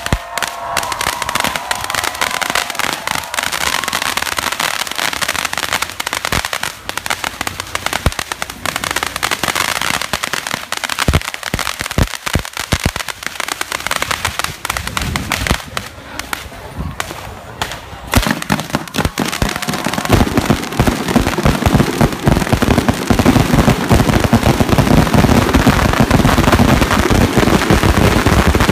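Long strings of Chinese firecrackers going off in a rapid, dense crackle of sharp pops, growing louder and denser about two-thirds of the way through.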